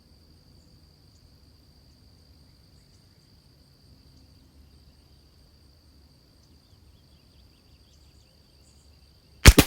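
A single .22LR shot from a Christensen Arms Ranger rifle, a sharp crack with a short echo near the end. Before it, a steady high-pitched insect buzz runs under the quiet, crickets or similar.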